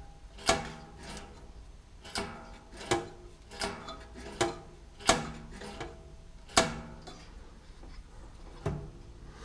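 Jaguar 3.8 heater-case vent flaps, freshly freed with oil, being worked back and forth. Each swing ends in a sharp knock with a short metallic ring, about one every 0.7 s, with a longer pause before the last knock near the end.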